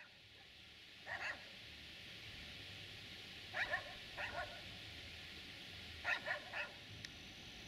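A dog barking several times in short runs of two or three sharp barks, about a second in, around three and a half to four seconds in, and again near six seconds, over a steady faint background hiss.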